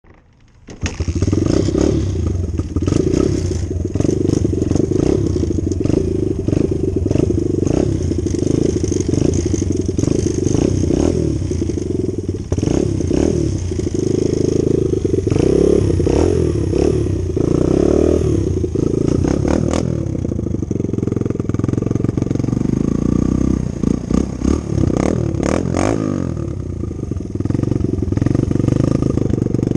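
Dirt bike engine running while being ridden, its pitch rising and falling as the throttle opens and closes, with scattered clicks and clatter over it.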